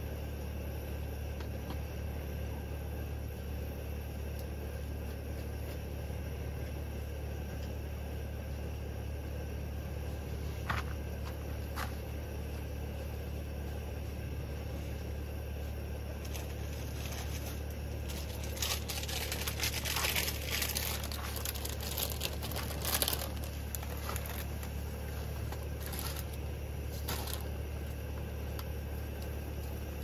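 A steady low hum throughout, with a few light clicks and, about two-thirds of the way through, a spell of crinkling and rustling.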